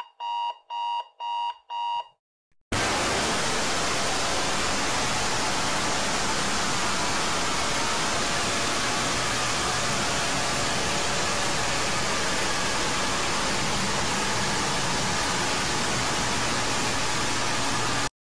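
A countdown timer's alarm beeps in five quick pulses, about two a second, as it hits zero. Then a loud, harsh static noise bursts in for about fifteen seconds and cuts off suddenly: the jump scare.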